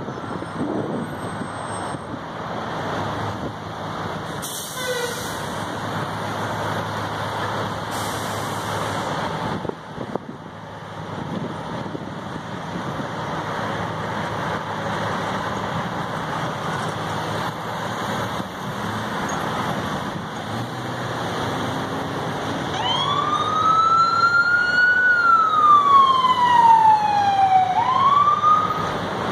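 Steady road traffic from cars and trucks. A little over three-quarters of the way in, an emergency vehicle's siren begins to wail: it rises, falls slowly, then rises again, and becomes the loudest sound.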